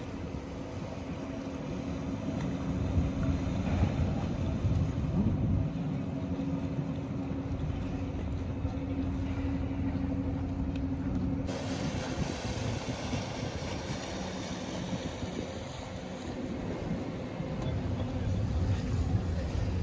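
Sailing yacht's inboard engine running at low speed while it manoeuvres to dock, a steady low rumble with a hum over it. About halfway through, the higher part of the sound turns abruptly brighter.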